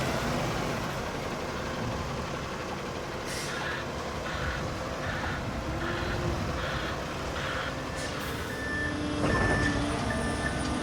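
Concrete mixer truck's diesel engine running while it reverses, its backup alarm beeping about twice a second from about three seconds in. Near the end a second, thinner beeper takes over and the engine grows louder.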